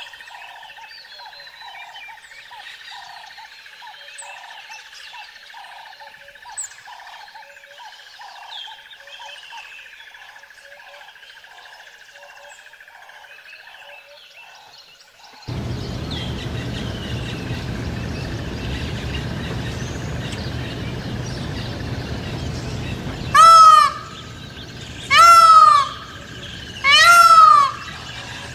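An Indian peacock gives three loud, wailing calls near the end, each about a second long and spaced under two seconds apart. Before that, small birds chirp over steady outdoor background sound, which turns to a louder hiss with a low hum about halfway through.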